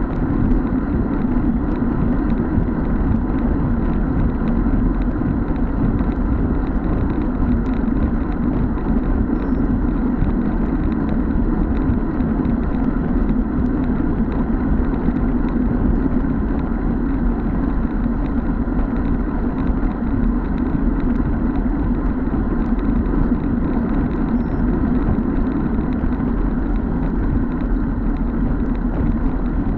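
Steady wind rush and road noise on a bike-mounted camera's microphone, with a road bicycle riding at about 45 km/h. The sound holds an even level, heaviest in the low rumble.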